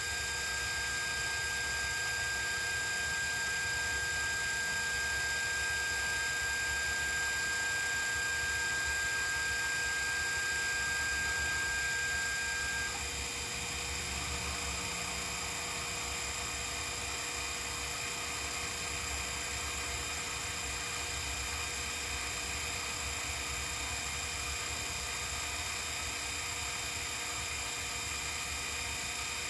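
Sherline CNC mill running under computer control, a steady electric whine of several tones from its motors. A high tone stops about halfway through, with the sound dropping a little as it does.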